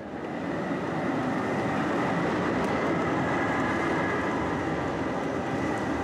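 Oslo tram passing close by: steel wheels running on the rails with a steady high whine over the rumble, growing louder just after the start and fading near the end.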